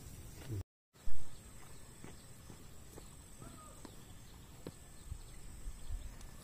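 Footsteps on bare dirt against quiet outdoor background noise. Just under a second in, the sound cuts out briefly and is followed by one loud, dull thump.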